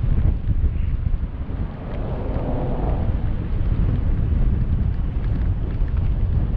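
Wind buffeting the microphone in a heavy, uneven low rumble, with a brief swell of mid-pitched noise about two to three seconds in.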